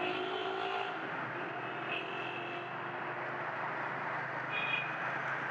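Motorcycle engine running steadily while riding through city traffic, with road and wind noise and other vehicles around; a short high tone about four and a half seconds in.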